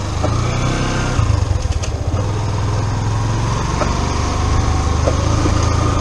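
Yamaha motorcycle engine running steadily while the bike rolls slowly at low speed, heard from a camera mounted on the bike.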